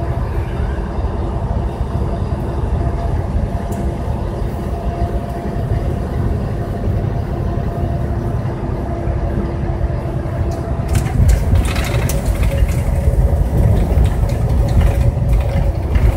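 Steady engine drone and road noise inside a truck cab cruising on a highway. From about eleven seconds in, a stretch of clattering and rattling is added.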